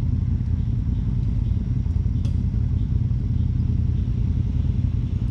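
A vehicle engine running steadily at idle, a low, even rumble.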